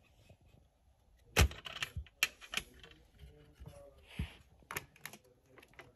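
Irregular plastic clicks and knocks from a switched-off vintage Hoover Celebrity II canister vacuum as its latch and bag-compartment lid are worked by hand. The loudest knock comes about a second and a half in.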